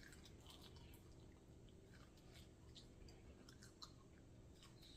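Faint chewing, with small wet mouth clicks of someone eating; otherwise near silence.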